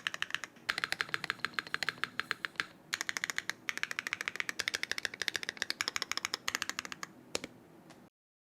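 Fast typing on a Smith+Rune Iron160 WKL mechanical keyboard with a copper plate, lubed Gateron Raw linear switches and CRP R5 keycaps, built with no foam or sound dampening. The keystrokes come in quick runs with brief pauses and stop a little before the end.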